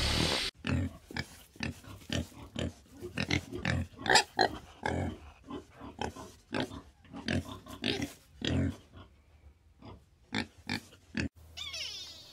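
Pig grunting in a rapid, irregular string of short grunts. Near the end the grunts stop and a different, higher call with gliding pitch begins.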